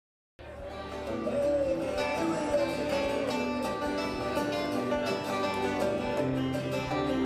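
Instrumental passage of a folk-rock song, led by strummed acoustic guitar, starting abruptly about half a second in after dead silence.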